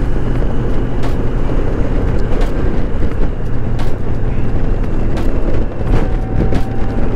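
Motorcycle engine running steadily at cruising speed, with wind rushing over the microphone.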